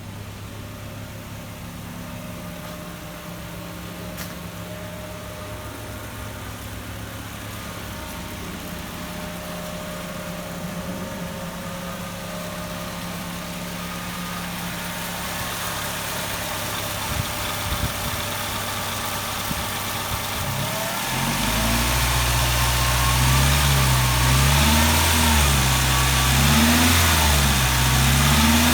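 2000 Chevrolet Tracker's engine running, steady at first, then from about two-thirds of the way in its pitch swings up and down in repeated swells as it grows louder. The seller lists a lifter tick in this engine.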